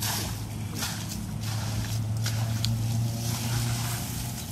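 Wet mud and water splashing and slapping as a fishing net is dragged and lifted out of a shallow muddy channel. Several sharp wet slaps stand out over the splashing, and a steady low hum runs underneath.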